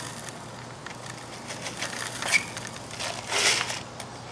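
Dry asphalt-patch aggregate (sand and fine gravel) pouring from a container into a plastic 5-gallon bucket with a gritty hiss. There is a sharp click a little after two seconds in, and a louder rush of grains about three and a half seconds in.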